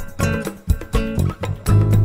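Background music led by plucked guitar notes over a bass line.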